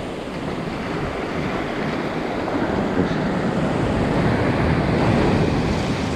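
Sea surf washing onto a sandy beach, a wave swelling to its loudest about five seconds in, with wind buffeting the microphone.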